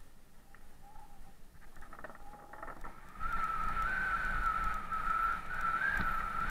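Mountain bike's rear freehub ticking as it coasts downhill, quickening into a steady buzz about three seconds in as the bike picks up speed, over the rumble of tyres rolling on a gravel trail.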